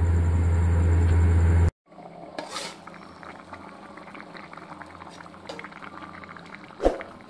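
A loud steady low hum for the first second and a half, then it cuts off. Goat-trotter (paya) curry bubbles at a rolling boil in an open metal pot, with one sharp knock near the end.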